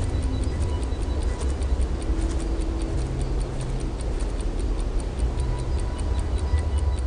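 Soundtrack of steady, even clock-like ticking over low sustained drone notes that shift every second or two.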